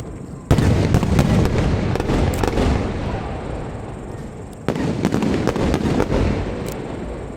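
Fireworks bursting in two volleys, one about half a second in and another about four seconds later, each a sudden bang followed by crackling that fades away.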